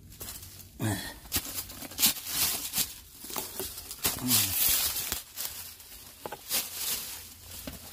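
Footsteps crunching and rustling through dry fallen leaves, dead weeds and gravel ballast, in irregular steps.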